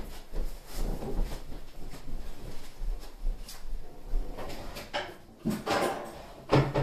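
Scattered knocks and clatter of household cupboards and drawers as someone rummages out of view to fetch a cutting board, louder near the end.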